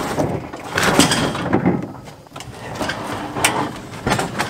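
A large scrap appliance being shoved across a wooden trailer deck: irregular scraping, knocks and clunks of metal on wood.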